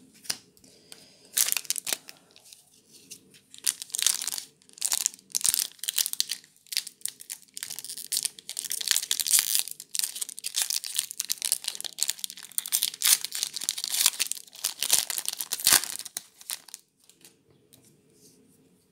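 A Magic: The Gathering Modern Horizons booster pack's foil wrapper being torn open and crinkled in the hands: a long run of sharp crackling rustles that stops a few seconds before the end.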